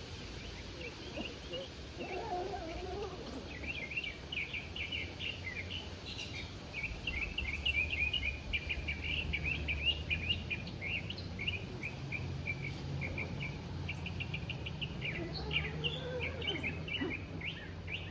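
Small birds chirping and singing outdoors: a nearly continuous run of quick, short, high chirps, over a faint low steady hum.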